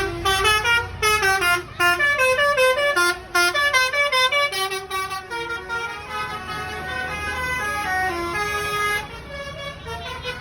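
Basuri musical bus horns playing quick, stepping melodies in a telolet horn battle, several tunes overlapping at once. A low engine rumble runs beneath them, and the horns play more sustained notes and grow a little quieter about halfway through.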